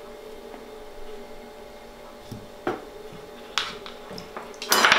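Kitchen utensils handled on a plastic cutting board: a few light knocks, then a brief louder clatter near the end as the metal ring cutter and knife are set down and picked up. A faint steady hum runs underneath.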